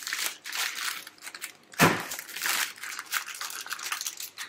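Spaghetti packet being torn open and crinkled by hand: a run of crackles and rips, the loudest about two seconds in.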